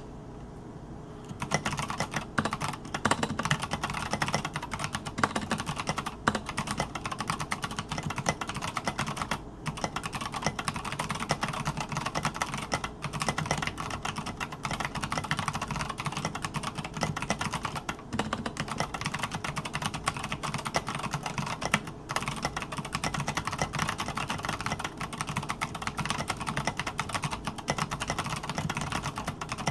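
Continuous fast typing on a TKC-1800 mechanical keyboard with Kailh BOX Royal tactile switches and tall SA-profile keycaps: a dense run of key clacks, after a short pause about a second long at the start.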